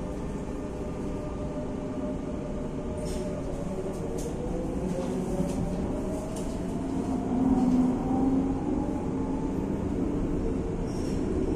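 Madrid Metro train (Line 7, unit 9013) running with a steady low rumble. Its motor whine rises slowly in pitch as the train picks up speed. A few sharp clicks sound over it.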